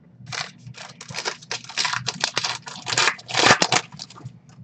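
Foil wrapper of a 2019 Donruss Optic football trading-card pack being torn open by hand. A quick run of rips and crinkles lasts about four seconds, loudest near the end as the wrapper comes apart.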